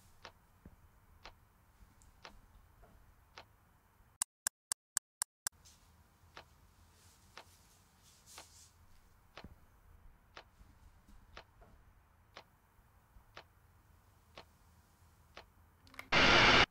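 Wall clock ticking about once a second. A little after four seconds the background drops out and six sharp clicks come in quick succession. Near the end there is a loud burst of noise, about half a second long.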